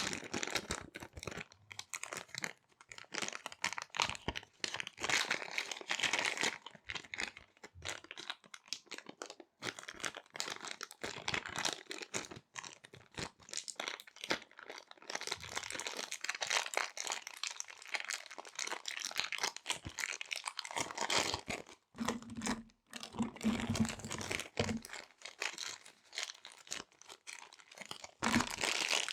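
Small resealable plastic zip bags crinkling and rustling as they are handled and squeezed, a continuous run of quick crackles with a few short pauses.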